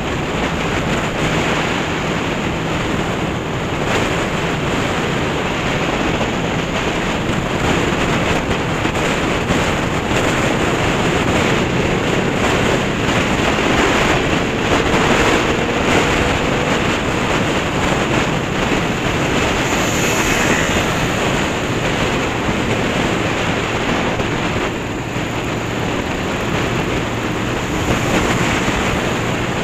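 Loud wind noise rushing over the microphone of a camera mounted on a riding motorcycle, with the Honda CB500's parallel-twin engine running steadily underneath.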